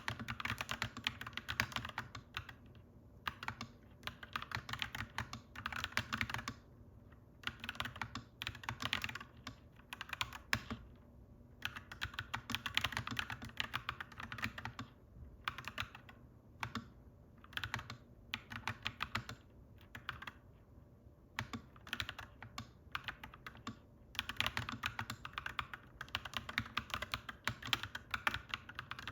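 Clacky mechanical keyboard being typed on in runs of one to four seconds with short pauses between, over a faint steady low hum.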